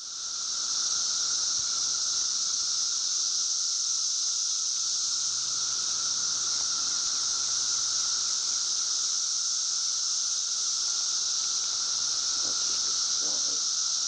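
Chorus of 17-year periodical cicadas: a steady, high-pitched drone with a lower steady hum beneath it, fading in over the first second.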